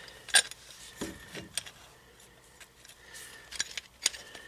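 A few sharp metal clicks and light knocks from hand tools and a brake caliper being handled, with a quieter stretch in the middle.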